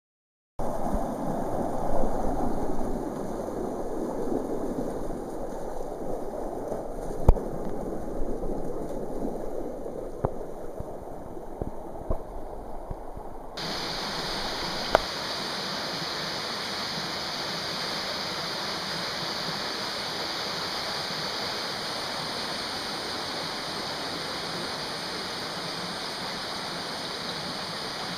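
Steady rush of a mountain stream and waterfall. The sound is lower and rumbling at first, with a few sharp knocks, then switches abruptly about halfway through to a brighter, even hiss of water that holds to the end.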